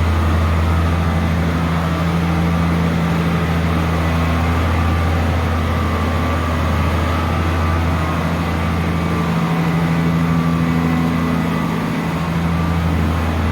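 Heavy engine of harvest machinery running steadily with a loud low drone; the deepest part of the hum dips briefly about ten seconds in.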